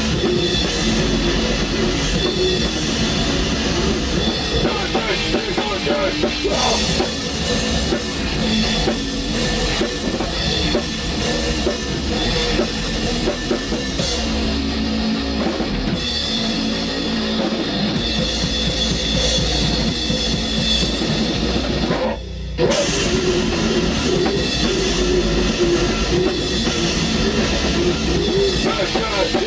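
Black metal band playing loud and dense, led by a drum kit with a driving bass drum, breaking off for a moment about three-quarters of the way through before crashing back in.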